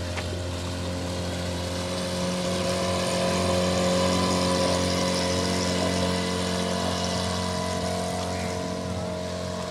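Outboard motor of an open boat running steadily as it passes close by, swelling to its loudest about four seconds in and fading as the boat moves away across the water.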